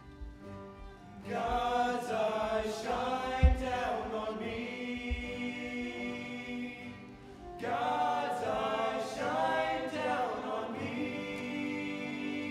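A small group of male voices singing together in harmony, in two long phrases with a short break about seven and a half seconds in. A low thump comes about three and a half seconds in, with a softer one near five seconds.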